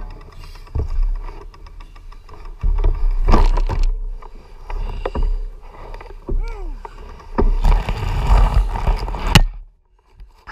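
Handling noise on an action camera's microphone: rubbing, bumps and low rumble as the camera is moved about, with a short pitched sound that rises and falls about six and a half seconds in and a sharp knock near the end.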